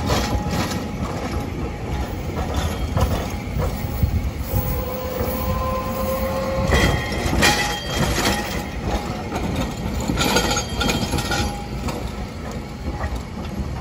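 Electric city tram passing close by on street track: a steady rumble of steel wheels on rail with bursts of clacking as the wheels cross track joints and switches, loudest about seven and ten seconds in, and a faint whine that rises slightly in pitch in the middle.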